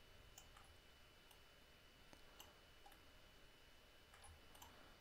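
Near silence with faint, irregularly spaced computer mouse clicks, about a dozen, over a faint steady high-pitched tone.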